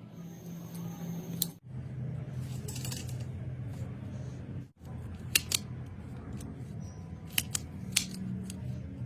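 Several short, sharp snips and clicks of a cutting tool working on an electrical cord, over a steady low hum.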